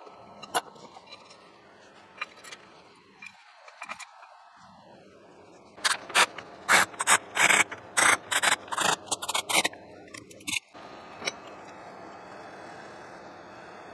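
Hand grease gun pumped in a quick run of loud scraping, clicking strokes, greasing the bearing of an electric lathe motor. A few scattered tool clicks come first.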